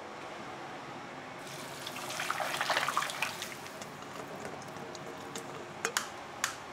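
Water running or splashing over a steady background hum, swelling louder for a couple of seconds, with a few sharp clicks near the end.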